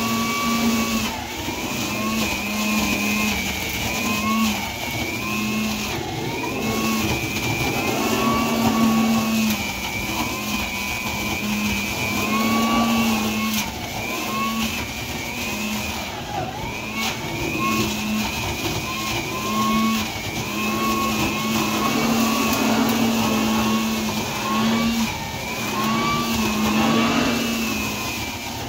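Craftsman leaf blower-vacuum running in vacuum mode, sucking loose blown-in insulation up through its tube and out a dryer flex duct. Its motor whine runs continuously, the pitch dipping and recovering every second or two as the insulation is drawn in.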